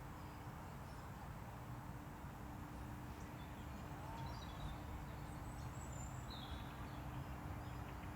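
Outdoor ambience: a few faint, scattered bird chirps and calls over a steady low rumble and a faint steady hum.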